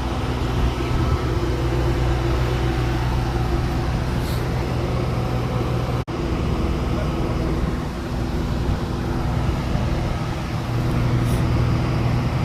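Heavy diesel machinery running steadily with a deep, even hum. The sound cuts out for an instant about six seconds in.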